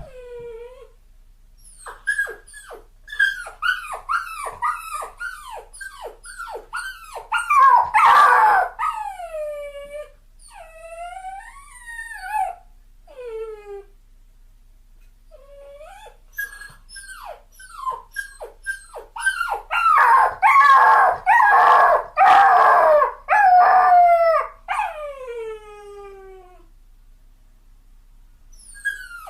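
Puppy crying: a quick run of short, high whimpers that each slide down in pitch, broken by longer drawn-out cries falling from high to low. There are two louder bouts of crying and a pause of a couple of seconds midway.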